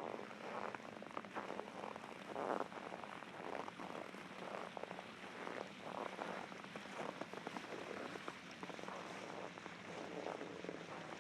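Footsteps crunching in cold, hard-frozen snow at a steady walking pace, one step every two-thirds of a second or so; one step about two and a half seconds in is the loudest.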